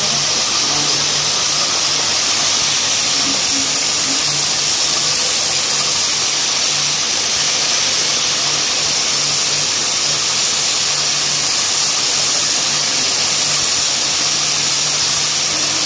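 A machine running steadily: a continuous hiss with a low hum underneath that fades in and out.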